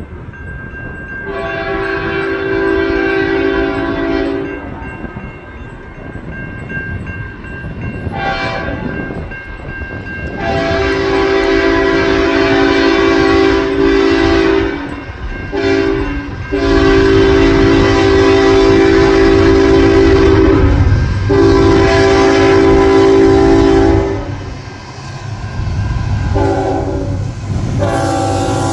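Canadian National freight locomotive's multi-tone air horn sounding a series of long blasts and one short blast as it approaches a grade crossing. The low rumble of the diesel locomotive and train grows louder near the end.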